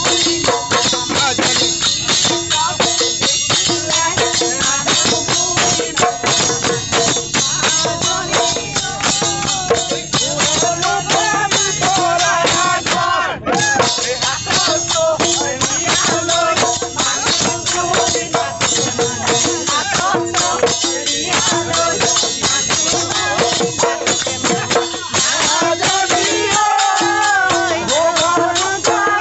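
People singing a folk song together to quick, steady clashing of small hand cymbals (taal).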